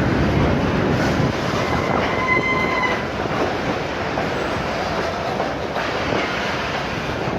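Train running on the rails, a steady noise strongest in the low end, with a brief high-pitched wheel squeal about two seconds in.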